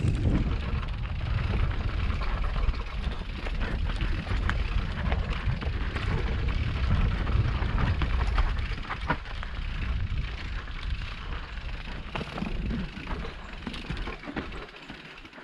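Mountain bike riding fast down a dirt singletrack: wind rumbles on the microphone over the tyres rolling on dirt and roots, with frequent sharp clicks and rattles from the bike over the bumps.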